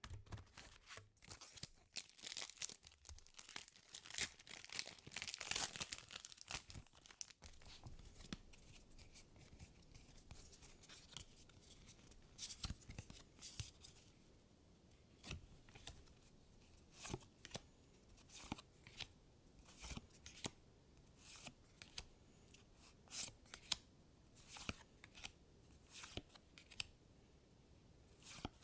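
Foil Magic: The Gathering booster pack wrapper being torn open and crinkled for several seconds, then a long run of scattered soft clicks and snaps as the cards are handled.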